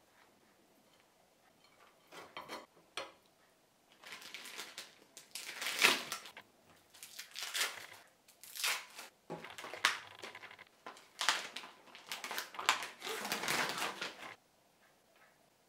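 Plastic food wrappers crinkling and rustling in a run of repeated bursts that starts about four seconds in and stops shortly before the end, as packaged cheese slices and a salami pack are opened and handled. A few faint scrapes come before it.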